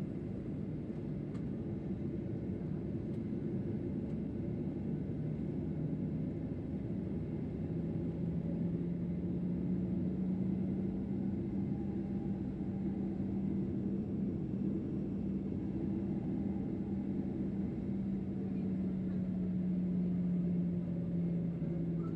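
Steady hum of a Boeing 737-800's CFM56 jet engines heard from inside the passenger cabin. The engine tone rises slightly in pitch and loudness about seven seconds in, holds, and settles back near the end.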